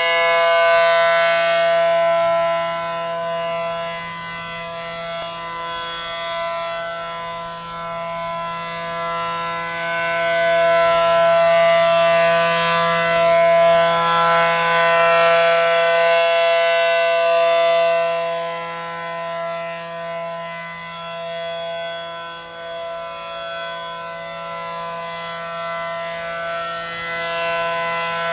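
ACA Allertor 125 rotating electromechanical siren with 9/12-port chopper sounding a steady dual-tone chord: the alert signal at full speed. Its pitch holds level while the loudness swells and fades as the horn turns toward and away.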